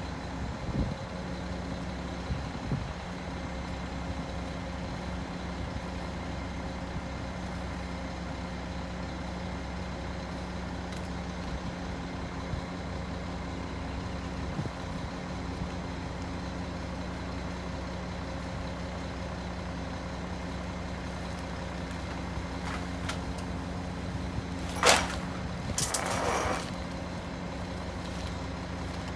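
Mack MR garbage truck's diesel engine idling steadily at the curb. Near the end there is one sharp knock, and a brief clattering burst follows about a second later.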